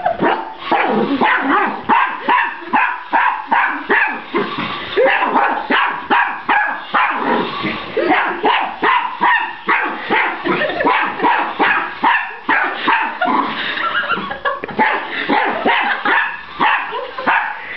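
A miniature pinscher barking over and over at about two barks a second, without letup.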